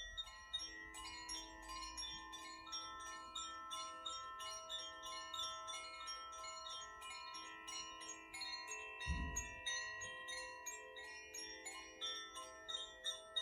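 Koshi chimes swayed gently, the clapper tapping the tuned rods several times a second so their bright tones ring on and overlap in a soft shimmer. A brief low thump about nine seconds in.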